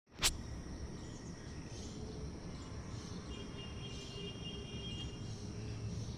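A sharp click right at the start, then steady outdoor background noise with a high, insect-like buzz running through it. A thin, steady whistle-like tone sounds for about two seconds in the middle.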